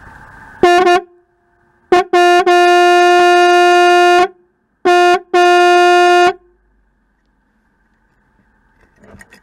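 Vintage electric horn, believed to be a 6-volt unit, honking on a 12-volt battery. It gives a short honk, two quick taps, a held blast of about two seconds, another quick tap, then a blast of about a second, all on one steady pitch that starts and stops sharply. The horn still works.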